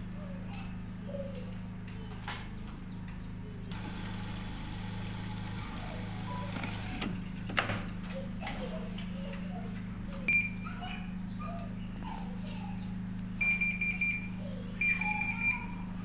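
Siemens washing machine's control panel beeping: a single short high beep, then near the end two bursts of rapid high beeps, each under a second long, over a steady low hum.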